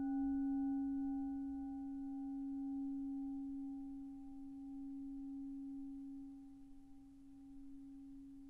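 A single sustained low musical tone with faint overtones, holding one pitch and slowly fading out.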